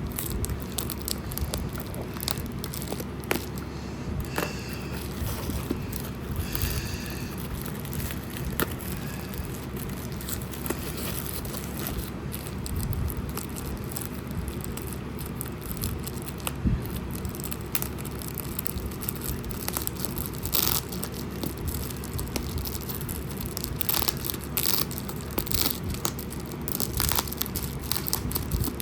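Packaging being handled and opened: cardboard, tape and packing material crinkling, tearing and scraping, with many short crackles and clicks scattered throughout over a steady low hum.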